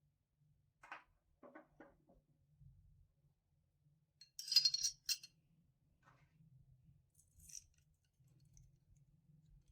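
Small metal pistol parts being handled: a few soft knocks, then a bright metallic jingle about halfway through, like a spring or small steel part dropped on a hard surface, and a lighter clink later.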